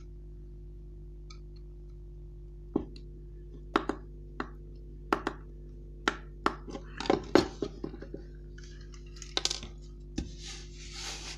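Screwdriver backing a small screw out of a diecast model car's base: a series of sharp metallic clicks and taps, bunched closer together about seven seconds in, then soft rustling handling near the end, over a steady electrical hum.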